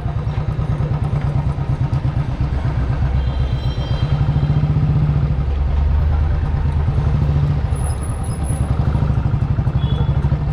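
Motorcycle engine running at low speed with a steady, fast low pulsing, the bike ridden slowly through street traffic.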